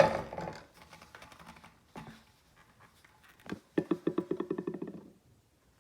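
Metal clank with a short ringing at the start, then a few scattered knocks and, about four seconds in, a rapid rattling clatter lasting just over a second, from handling the motorcycle's rear wheel and its parts.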